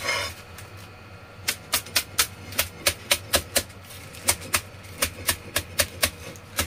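Chinese cleaver chopping spring onions into small pieces on a plastic cutting board: quick, regular knocks of the blade on the board, about four a second, starting about a second and a half in.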